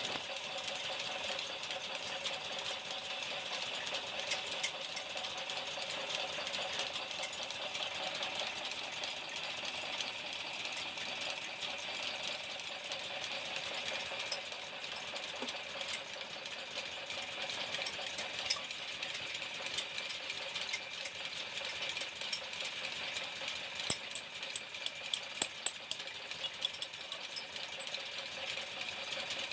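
Steady running of workshop machinery: a constant mechanical whir with a high hiss, and a run of sharp ticks near the end.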